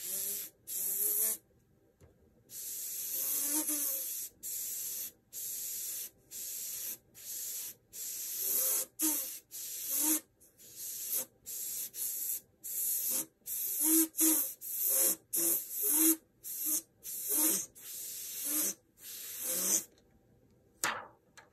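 Airbrush spraying in a long series of short hissing bursts as the trigger is pressed and let go, about two dozen in all. After about eight seconds the bursts get shorter and closer together.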